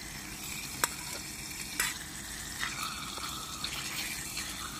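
Marinated meat strips sizzling in a camping frying pan over a gas canister stove. A utensil clicks sharply against the pan about a second in and again near two seconds, then scrapes as the pieces are moved around.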